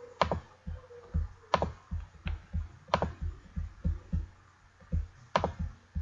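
Sharp clicks at a computer, about five of them spread out, over a low thumping that comes roughly twice a second.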